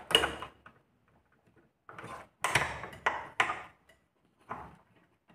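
Short metal clicks and knocks of a hex key being fitted into and turned in a steel security door's hinge screw to tighten it. One click comes at the start, a run of several sharper knocks from about two to three and a half seconds in, and a last click near four and a half seconds.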